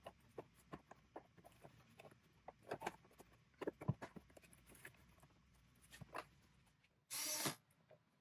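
Hard plastic air-filter tray and housing parts clicking and tapping as they are slid and clipped into place. Near the end a cordless drill-driver runs for about half a second, driving in a 10 mm bolt.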